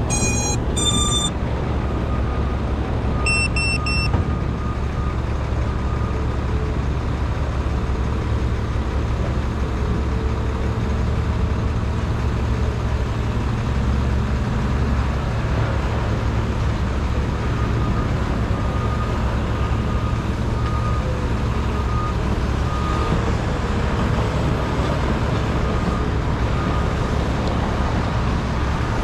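A steady low rumble, with short bursts of electronic beeps in the first second and again about three to four seconds in.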